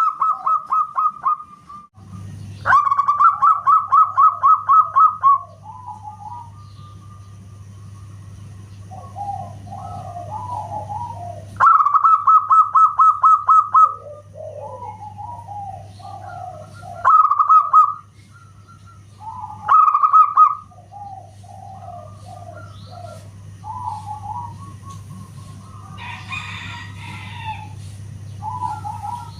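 Zebra dove (perkutut) singing. Loud runs of rapid staccato cooing notes, about five or six a second, come in bursts of one to three seconds several times, with softer, lower coos between them. A steady low electrical hum runs underneath.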